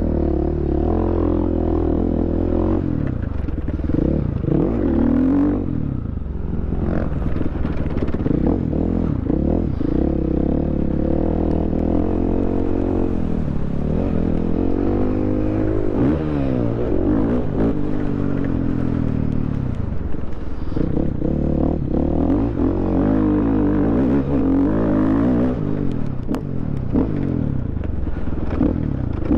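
KTM 500 EXC's single-cylinder four-stroke engine being ridden hard around a dirt track, heard close from the rider. Its pitch climbs and drops again and again as the throttle is opened and closed and the gears are changed.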